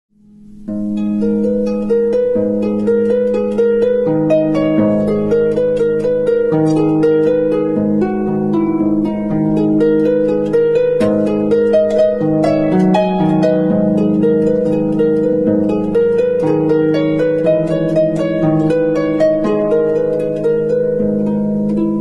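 Instrumental soundtrack music: a rapid, unbroken stream of plucked string notes, fading in over the first second.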